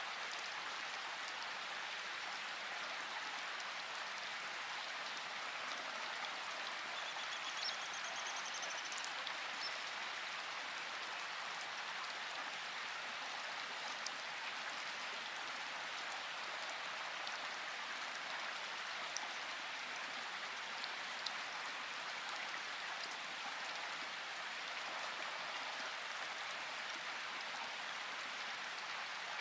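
Steady rain falling, with a few louder single drops standing out now and then.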